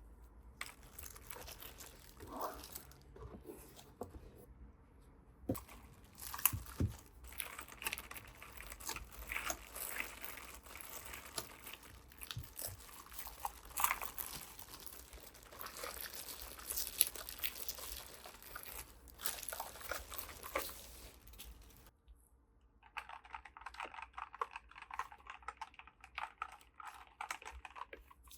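Packaging of a boxed mechanical keyboard being handled and unpacked: irregular crinkling and rustling with light taps and knocks. The sound breaks off suddenly about 22 s in and resumes as a dense run of fast crackling.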